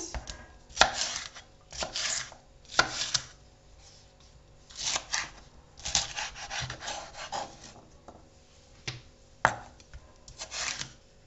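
Ceramic kitchen knife slicing bell peppers on a wooden cutting board: an irregular run of crisp cuts, with a few sharper knocks of the blade on the board.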